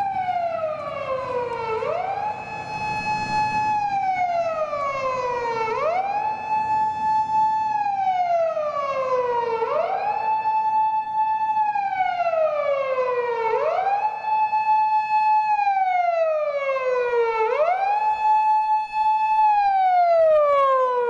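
Japanese police siren wailing in a repeating cycle, about every four seconds: a quick rise, a high note held for about two seconds, then a slow fall back down.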